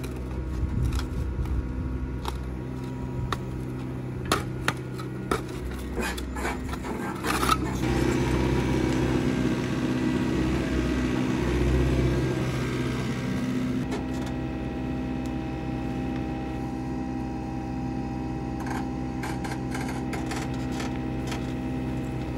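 Excavator's diesel engine running steadily, working harder for several seconds midway as it lifts a concrete U-channel on slings. A series of sharp knocks and scrapes comes in the first seven seconds or so.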